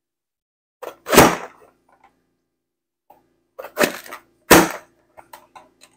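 Hand-pressed vegetable chopper having its lid pushed down to force green bell pepper through the blade grid: three sharp chopping strokes, one about a second in and two close together around four seconds in, with lighter clicks between them.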